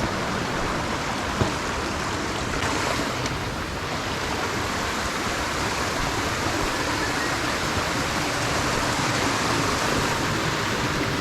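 Steady rush of a creek running full after heavy rain, with one sharp click about one and a half seconds in.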